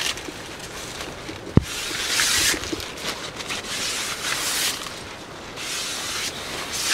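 Fibrous sheaths of ito-bashō (fiber banana) stalks being peeled apart and handled, rustling and tearing in scratchy bursts, with a single sharp click about a second and a half in.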